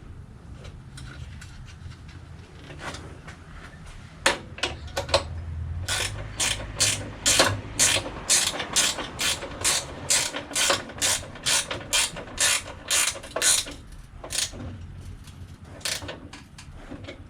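Hand ratchet wrench clicking as a nut is run down: a few scattered clicks, then a steady run of about three clicks a second for some eight seconds, and a few more near the end.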